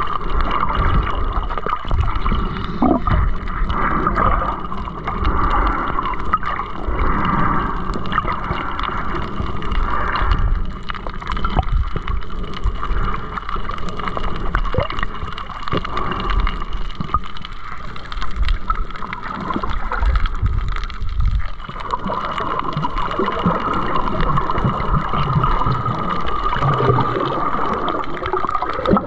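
Underwater ambience recorded by a camera below the surface over a coral reef: a steady muffled wash of gurgling water with a low rumble and scattered short clicks.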